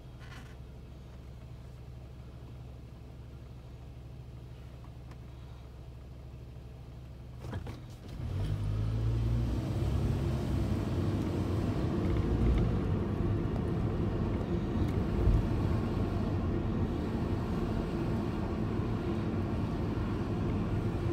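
Vehicle heard from inside, its engine idling with a steady low hum, then a click about seven and a half seconds in. The vehicle then pulls away, and engine and road noise rise and stay loud while it drives.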